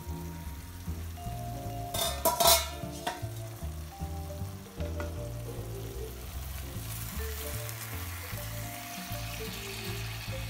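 Fish and vegetables sizzling in an uncovered wok, with a brief clatter about two seconds in and the sizzling hiss growing louder in the second half as wooden spatulas turn the ingredients. Background music plays throughout.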